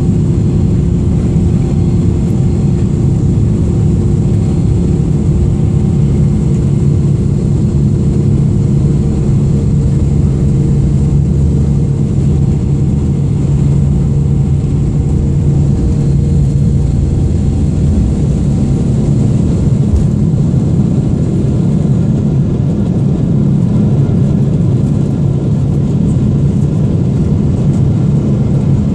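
Boeing 777-300ER's GE90 turbofans at takeoff thrust, heard inside the cabin over the wing as a loud, steady low drone while the jet rolls down the runway and lifts off. A single brief knock about two-thirds of the way through.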